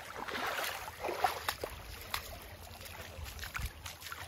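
Stream water running over rocks, with scattered short clicks and knocks.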